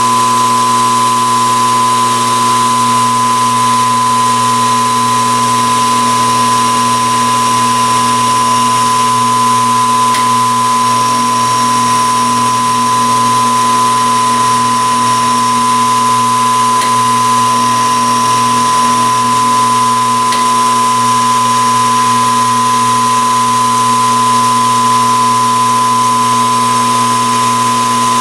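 Metalworking machine tool running steadily, a constant motor hum with a high whine over a hiss, as a cut is made.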